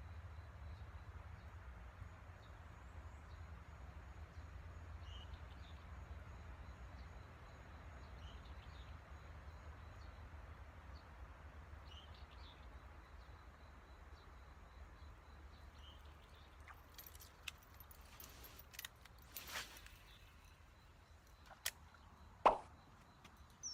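Faint outdoor ambience: a steady low rumble with a few faint high chirps, then several sharp clicks in the last few seconds, the loudest about 22 seconds in.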